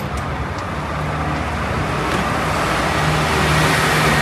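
A heavy truck's diesel engine running close by, with a steady low hum that grows louder toward the end.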